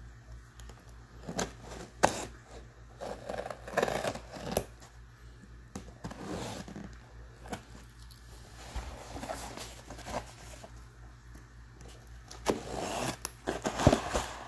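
Cardboard box being handled: scattered scrapes, rustles and taps of cardboard, with a sharp knock about two seconds in and a run of clicks and scrapes near the end, over a faint steady low hum.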